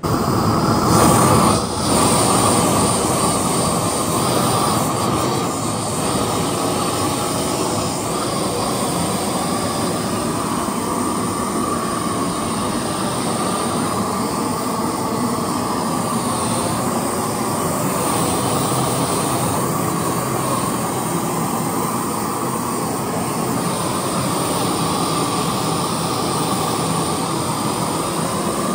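Large handheld gas torch burning with a loud, steady rushing flame as it scorches the surface of carved pine. There is a short break about a second and a half in.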